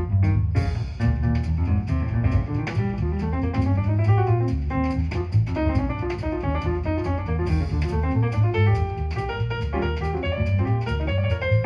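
Instrumental break of a jazz song: guitar picking quick runs of notes over double bass and drums, played back through a 2A3 single-ended tube amplifier.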